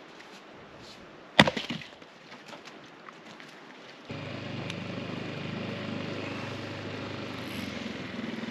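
Axe blow splitting a piece of firewood on a chopping block: one sharp crack about a second and a half in, followed by a few faint knocks. About four seconds in a steady outdoor background noise takes over.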